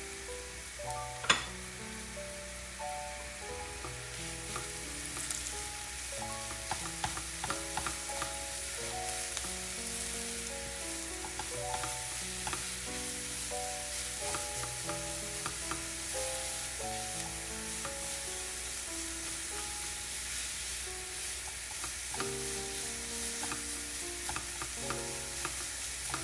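Grated carrots and sliced onions sizzling in hot oil in a nonstick pot, stirred with a silicone spatula that scrapes and taps against the pan. One sharp knock about a second in. Soft background music plays throughout.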